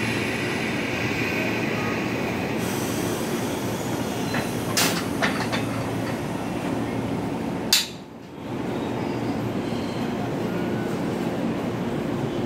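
Stationary 185 series electric trainsets giving a steady equipment hum, with a few short, sharp metallic sounds from the coupler between the two sets as it is worked on. The loudest comes a little past halfway.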